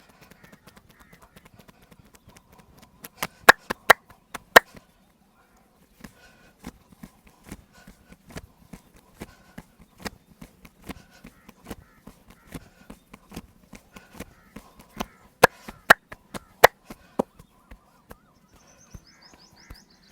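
Percussive massage: hands slapping and tapping on the body in a long series of sharp strikes, about two a second, with a few louder smacks among them.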